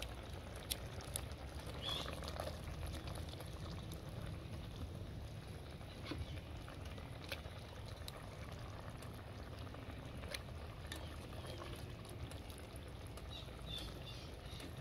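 Kitchen tongs clicking and tapping a few times against a steel stockpot and a plastic blender cup as soft cooked peppers and vegetables are lifted into the cup, over a steady low rumble.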